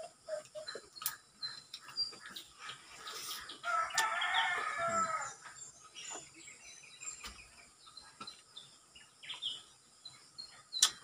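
A rooster crows once, about four seconds in, a single call lasting about a second and a half that falls at its end, over light chirping of small birds. Scattered small mouth clicks from chewing soft fruit, and one sharp click near the end.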